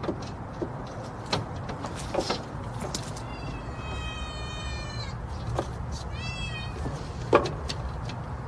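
A cat meowing twice: one long, drawn-out meow about three seconds in and a short meow about six seconds in. Under it runs a steady low rumble, with a few sharp knocks.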